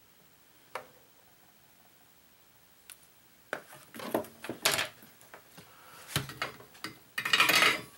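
Small tools and objects being handled on a workbench: a couple of faint clicks, then irregular clattering and knocking from about three and a half seconds in, with a longer, louder rustling clatter near the end.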